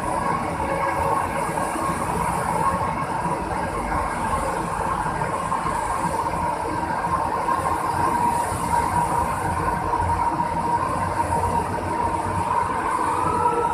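MRT-3 ČKD Tatra light rail train moving slowly along the platform: wheels rumble under a steady electric whine from the traction equipment, which sags a little in pitch near the end and then splits into a rising and a falling tone.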